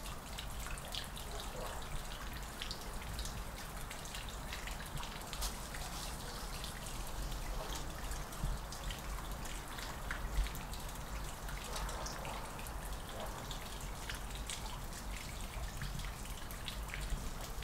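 Water dripping: scattered drops ticking irregularly, over a low steady rumble.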